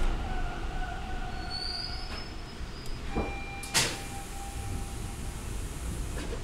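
Toronto T-1 subway car standing at a platform with its doors open: a steady low rumble from the car's equipment, with a few faint whines. A couple of clunks come about three seconds in, the louder one a sharp knock just after, along with a brief steady tone.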